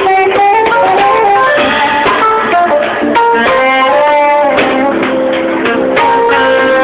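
Saxophone playing a melody of held and stepping notes over instrumental accompaniment, several instruments sounding at once.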